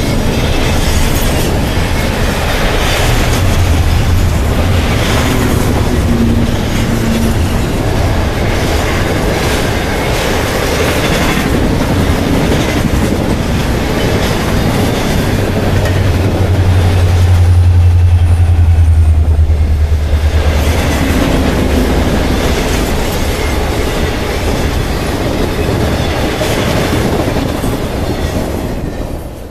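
Double-stack intermodal container train passing close by: a steady rumble and clatter of the cars' wheels on the rails. A deeper rumble swells for a few seconds just past the middle.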